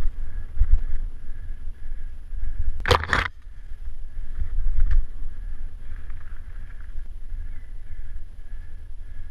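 Mountain bike riding down a forest trail: wind rumbling on the microphone with a faint high whir from the bike, scattered rattles, and one loud clatter about three seconds in as the bike jolts over rough ground.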